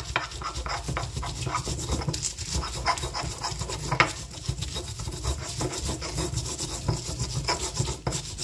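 Stone pestle (ulekan) grinding bird's-eye chilies and salt against a stone mortar (cobek): quick, rough scraping and rubbing strokes with occasional sharper knocks, one louder knock about four seconds in.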